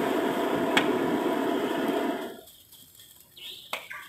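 Steady rushing noise from the gas burner under a wok of frying fried rice, which cuts off suddenly about two seconds in. A few scrapes and taps of a metal spatula against the wok follow.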